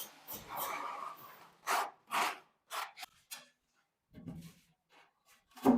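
Tile-laying work: a run of short scraping strokes, about two a second, like a trowel working sand-and-cement mortar, then a dull knock about four seconds in and a sharper, louder knock near the end.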